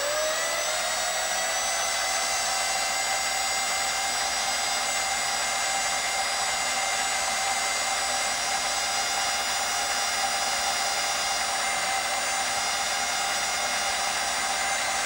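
Electric drill spinning up and then running at a steady slow-to-moderate speed, its motor whine rising briefly and then holding one pitch, as a 5/64-inch pilot bit drills down through the rivet of a Hot Wheels die-cast car.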